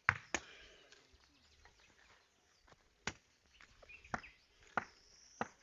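Irregular sharp knocks from construction work, about six over a few seconds, with birds chirping.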